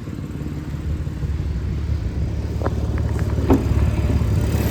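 Audi S5 with an APR Stage 2 tune and resonator delete idling steadily when warm. The exhaust manifold leak is barely audible at this temperature. A couple of faint clicks come through the middle.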